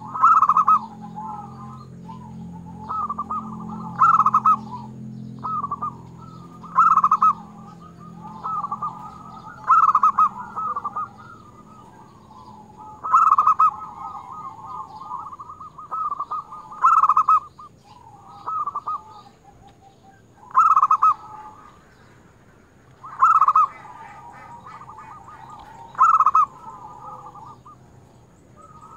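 Zebra dove cooing: rapid rolling coos around one pitch, in phrases that repeat about every three seconds, each with one loud accented note.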